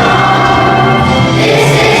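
Children's choir singing a song with instrumental accompaniment, loud and steady, the voices holding long notes.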